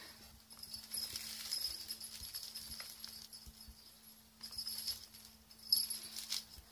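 A small bell on a dangled cat toy jingling in several short bursts as kittens swat and leap at it, with a few soft knocks from their landings on the tile floor.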